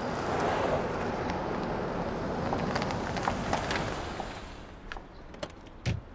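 A Tesla Model S electric car driving past on a street. Its tyre and road noise swells in the first second and fades away by about four seconds in. A few sharp clicks and a thump follow near the end.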